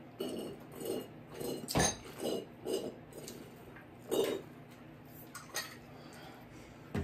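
Eating sounds: chewing and mouth noises, with a few sharp clinks of cutlery against a plate.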